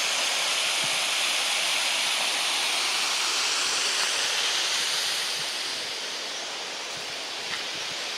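Steady rush of a waterfall's falling water, easing slightly about five seconds in.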